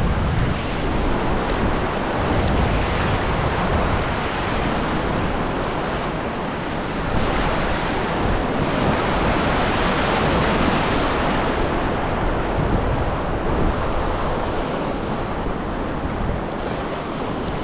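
Shallow surf washing and foaming close around the microphone, a steady rush of water, with wind on the microphone.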